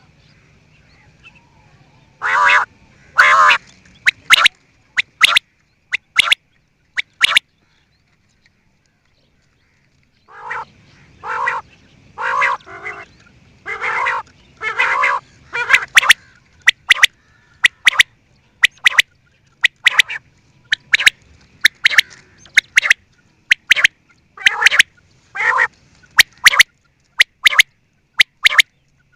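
Quail calling: short harsh calls in groups, then a dead-silent gap of a few seconds, then more calls. Through the second half come quick sharp notes about once a second.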